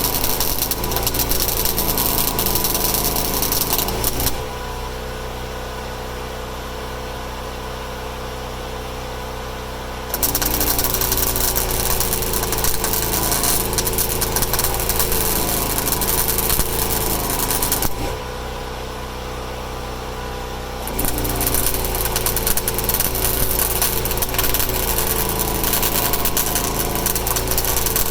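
Fiat-Allis 11-B crawler dozer running with a steady engine hum and a loud rattling clatter. Twice the clatter and loudness drop back for several seconds, about four seconds in and again after about eighteen seconds, before picking up again.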